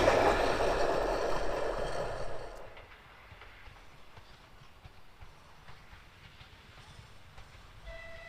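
A diesel-hauled train passing and moving away, its rail and engine noise fading out within about three seconds to a quiet background. A short, single beep-like tone sounds near the end.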